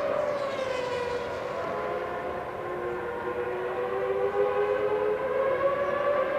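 A Formula 1 car's V10 engine still running after a crash, a steady multi-tone engine note that dips in pitch over the first second or so, then slowly climbs again.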